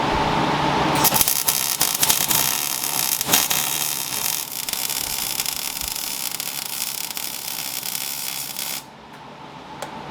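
Arc welding on steel: a steady crackling, sizzling hiss that starts about a second in and stops shortly before the end, with a low steady hum beneath it at the start.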